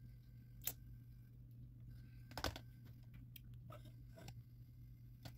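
Metal kitchen tongs clicking a few times over a steady low hum, the loudest click about two and a half seconds in.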